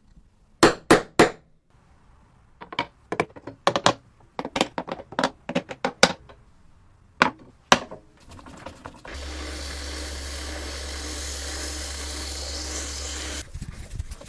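Workshop tool sounds: three sharp knocks, a run of lighter taps and two more knocks, then a power tool motor runs steadily for about four seconds and stops.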